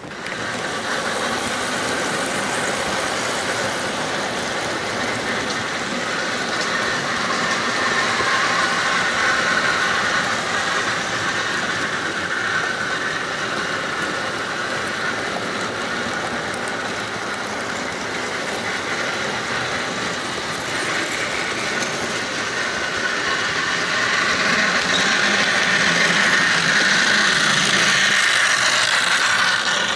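HO-scale model diesel locomotive hauling a train of wagons on the layout: the electric motor whirring and the wheels clicking over the track, steady and continuous, growing louder near the end as the locomotive passes close.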